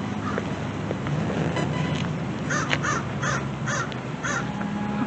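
American crow cawing, a quick run of about five harsh caws about half a second apart in the second half, with fainter caws earlier, over a steady low hum.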